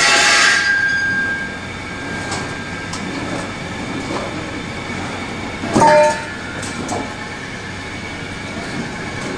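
Hands-on installation noise as a green conveyor belt is fitted over the steel rollers of a roller heat transfer machine: a loud knock at the start that rings on with a metallic tone for a second or so, a second short knock with a brief ring about six seconds in, and steady handling noise between.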